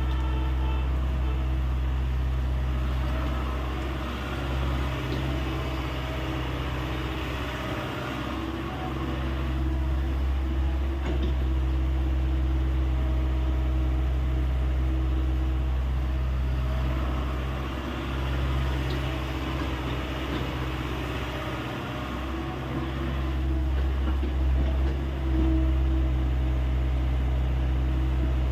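Hyundai 85A excavator's diesel engine running steadily, its note dipping and swelling several times as the load on the machine changes.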